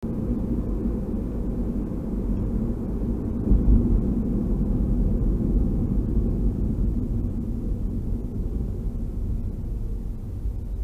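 Road and engine noise inside a moving car's cabin: a steady low rumble of tyres and drivetrain, a little quieter over the last few seconds.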